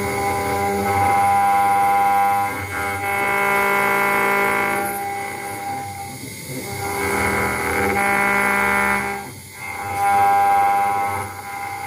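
CNC engraving router's spindle and cutter machining a brass plate: a steady whine of several tones together, whose pattern shifts in sections with brief dips a little after halfway and near the end.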